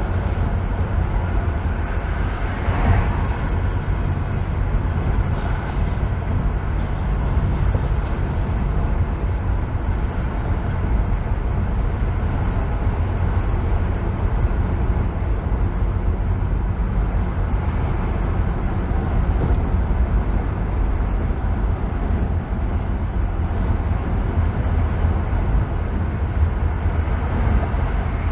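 Car driving on a freeway: a steady low rumble of tyre and road noise, with a brief louder swell about three seconds in.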